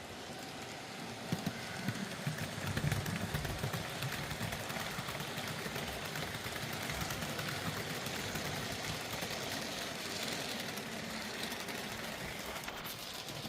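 ROCO 1:87 BR186 model electric locomotive and its freight wagons running round the model railway track, a steady rolling rattle of small wheels on rail with faint clicks. It is louder from about one and a half to four seconds in.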